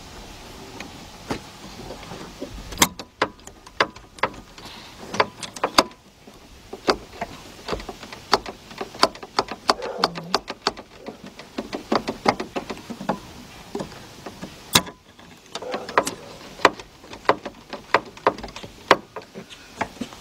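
Irregular metallic clicks, clinks and knocks as the convertible top's hydraulic cylinder is shifted by hand against its mount, trying to line it up with the mounting holes. The clicks are scattered and uneven, with a few louder knocks.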